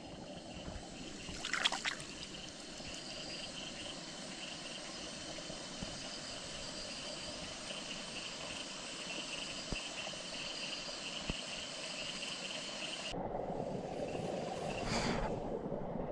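Steady rain falling on a flooded rice paddy, with frogs calling in a pulsing high chorus that drops out about thirteen seconds in. A brief rustle comes about two seconds in, and another near the end.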